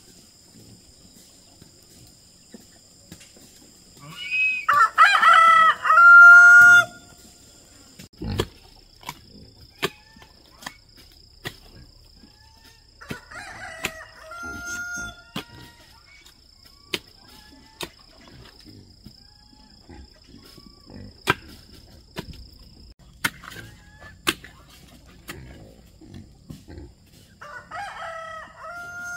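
A rooster crowing: one loud crow about four seconds in, a fainter crow around fourteen seconds, and another near the end. Scattered sharp knocks and clicks come between the crows, over a thin steady high tone that stops about two thirds of the way through.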